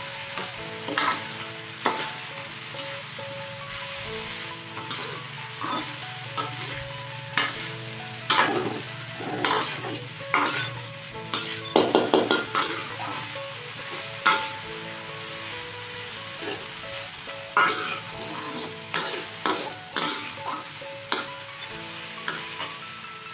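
Pork intestines and offal sizzling in hot oil in a wok, stirred with a metal spatula that scrapes and knocks against the pan again and again over a steady sizzle, with a quick flurry of scrapes about twelve seconds in.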